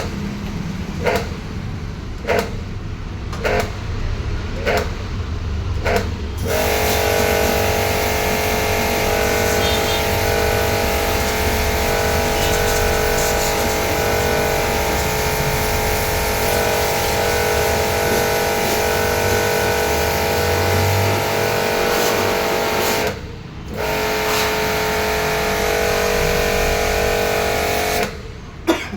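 Washing machine running: a knock about once every second and a bit. About six seconds in, it changes to a loud steady whirring drone with a whine and hiss, which drops out briefly about 23 s in, resumes, and stops near the end.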